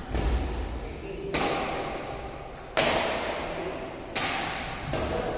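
Badminton racket striking the shuttlecock three times, about a second and a half apart, each crack echoing around a large hall. A heavy thud of a foot landing on the wooden court floor comes right at the start.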